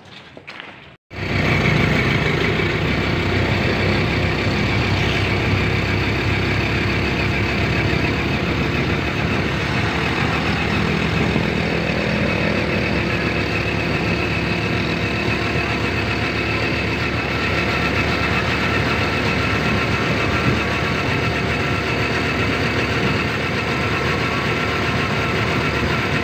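Steady engine and road noise of a moving car, heard from on board, coming in suddenly about a second in.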